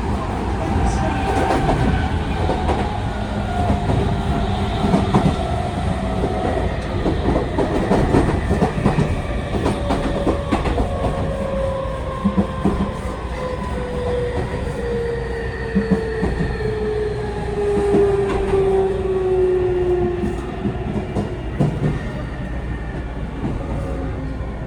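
Hitachi IGBT-VVVF inverter and TKM-98 traction motors of a Tokyu 5000 series train heard from inside a motor car, whining in several tones that fall steadily in pitch as the train slows, fading out near the end. Under it there is a steady rumble and clacking of the wheels over rail joints.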